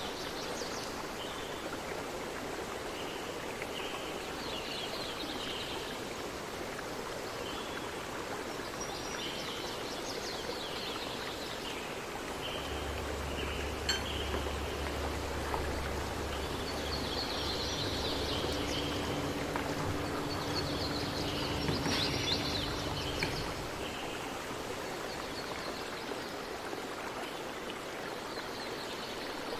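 Steady rushing noise like running water, with bird-like chirps coming and going in groups. A low hum comes in about twelve seconds in and stops about ten seconds later.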